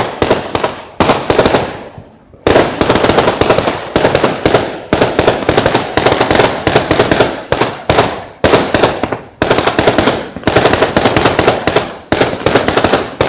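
Fireworks going off in rapid volleys of loud bangs, several a second, with a short lull about two seconds in.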